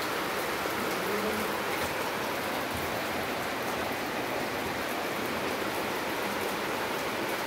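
Steady, even hiss with faint scattered ticks, unchanging in level.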